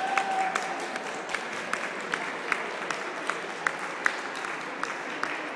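Spectators applauding, with sharp claps keeping a steady beat of about two to three a second.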